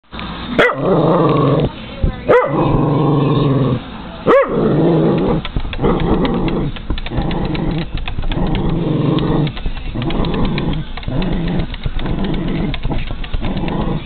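Cairn Terrier barking and growling at birds outside: three sharp high yaps in the first few seconds, then a steady run of drawn-out growling barks, one every second or two.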